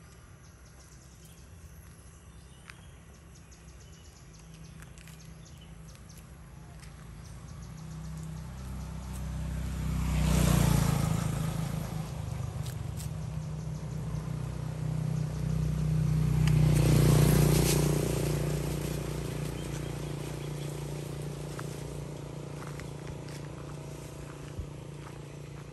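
Motor vehicles passing on the road: engine and tyre noise builds slowly to a peak about ten seconds in, eases slightly, swells to a second peak around seventeen seconds, then fades away.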